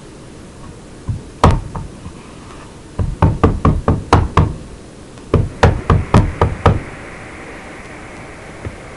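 Wood-mounted rubber stamp tapped repeatedly onto a Classic ink pad to ink it: two single knocks, then two quick runs of about half a dozen knocks each, roughly four a second. A steady hiss comes in near the end.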